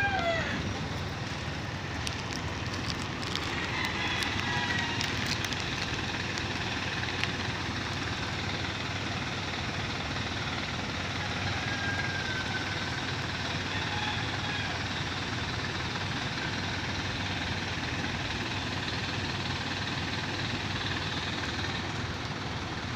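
Boom truck's engine running steadily while its hydraulic crane lowers a marble slab: a constant, even mechanical noise, with a few faint clicks two to three seconds in.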